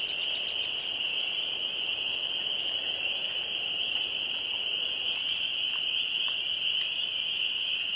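A steady, high-pitched chorus of small calling animals, with a few faint clicks from eating.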